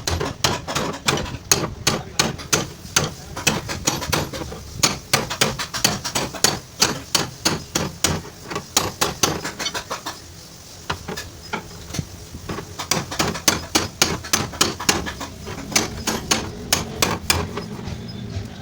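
A hammer striking the car's sheet-metal body panel over and over, beating out accident damage. The blows come in quick runs of about two to three a second, with a short break about ten seconds in.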